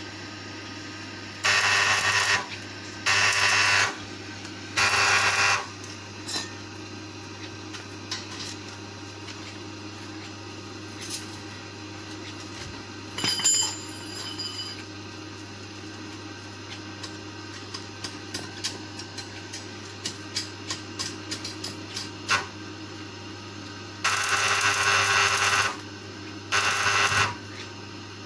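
A small power tool run in short bursts of about a second, three early on and two near the end, with scattered light clicks and taps of handling between, over a steady low hum.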